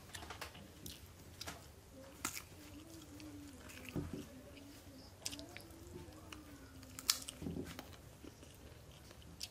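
An elderly man chewing and biting a mouthful of chicken biryani, with sharp mouth clicks and smacks at irregular intervals, about one every second or so.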